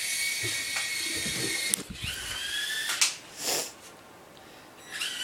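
Toy remote-control helicopter's small electric motor whining at a steady high pitch, broken off by a sharp knock under two seconds in. It spins up again with a rising whine, is cut by another sharp knock and a short clatter about three seconds in, falls quiet, and starts whining again near the end: the helicopter is crashing.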